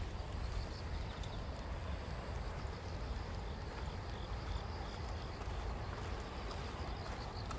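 Footsteps of a person walking on an asphalt path, with a low continuous rumble underneath.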